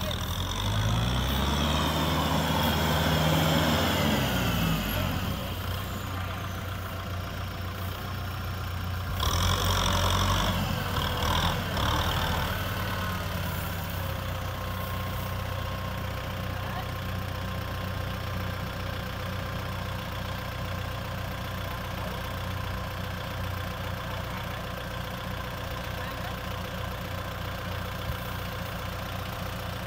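Kubota M6040SU farm tractor's four-cylinder diesel engine revving up and back down, then, after a louder stretch about a third of the way in, running steadily while the tractor sits bogged in deep mud with a trailer of rice sacks.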